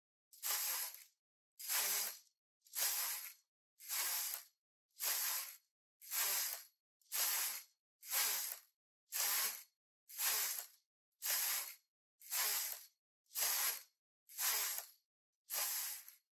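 Knitting machine carriage being pushed back and forth across the needle bed, each pass a hissing swish, about one pass a second, fifteen times, stopping just before the end.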